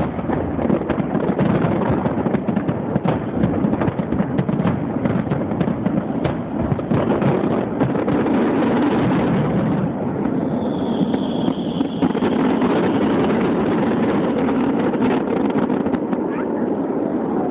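Fireworks finale barrage: rapid overlapping bangs and crackles for the first half, thinning out. Then a crowd cheering and calling out, with a high whistle about ten seconds in.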